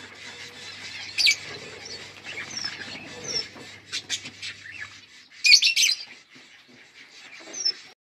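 Lovebirds chirping in quick, sharp notes, with a few short falling whistles and a loud burst of shrill calls about five and a half seconds in.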